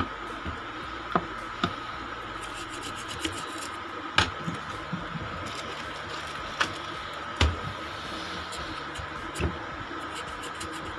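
Scattered light clicks and knocks of handling on a workbench, about ten of them, over a steady hiss with a faint high whine.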